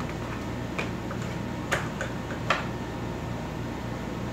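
Three sharp clicks and a few fainter ticks, spread over the first two and a half seconds, as a TV's power plug is handled and pushed into a socket, over a steady low hum.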